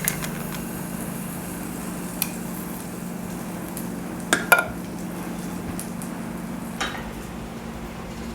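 A handful of short clinks and taps of a utensil against cookware, spread out, the loudest two close together about four and a half seconds in, over a steady low hum.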